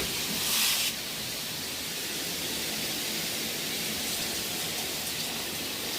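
IonDrops shower head spraying water in a steady, hissing stream, with a louder splash for under a second about half a second in.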